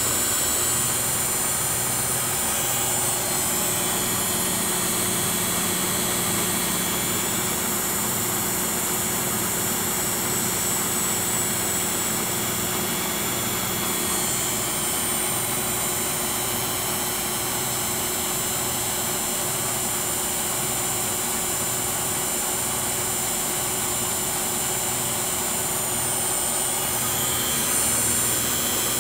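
Miele W3033 washing machine's brushed drive motor and belt running steadily inside the cabinet: a steady high whine over an even rushing hum.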